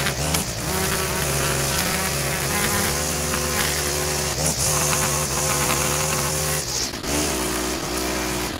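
Small gas engine of a handheld lawn tool running with a steady buzz, its speed dipping and picking back up about seven seconds in.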